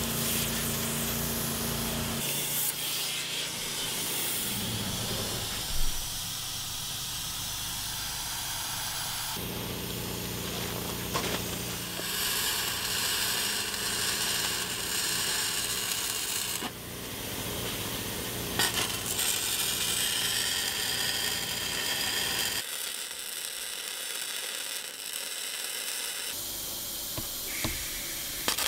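Steel fabrication work cut together. Abrasive blasting of a steel wing section for the first couple of seconds, then MIG welding on steel plate, with several sudden cuts between takes.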